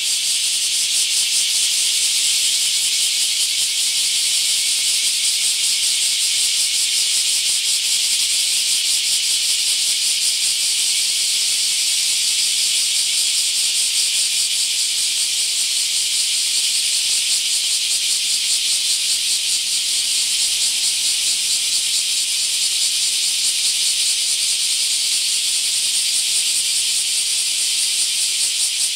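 Dense chorus of many bear cicadas (Cryptotympana facialis), a loud, continuous high-pitched rasping buzz with a fast even pulse, from a mass emergence.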